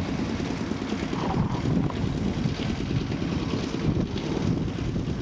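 Wind buffeting the microphone: a steady, fluctuating low rumble.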